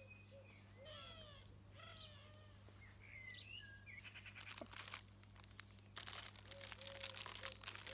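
Outdoor bird calls, short curved chirps, in the first half. About four seconds in, a spell of crinkling and rustling begins.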